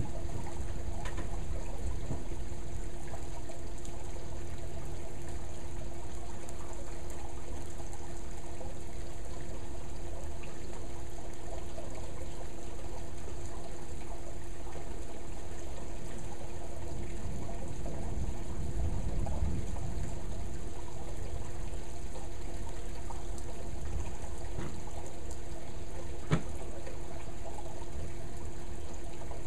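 Steady splashing and trickling of water at a backyard pool as the first large drops of a monsoon rainstorm begin to fall, over a faint steady hum. One sharp tap of a drop stands out near the end.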